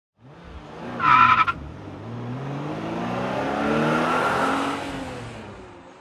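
Car tyres squeal briefly and loudly about a second in. Then a car engine revs up, its pitch rising, and fades out toward the end.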